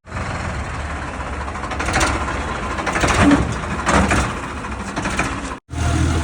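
Farmtrac 50 tractor on the move along the road: a steady rumble with road noise, swelling louder about two, three and four seconds in. The sound drops out briefly near the end.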